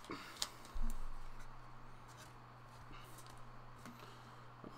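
Trading cards being handled and set down on a playmat: a few light taps and slides of card stock, with a soft thump about a second in, over a low steady hum.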